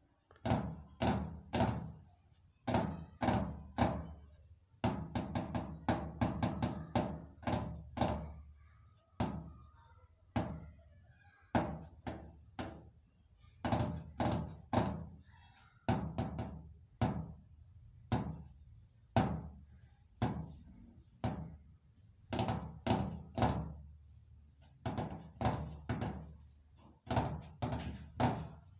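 A long series of sharp percussive thunks, each with a short ringing tail, coming in uneven clusters of two to six hits with brief gaps between.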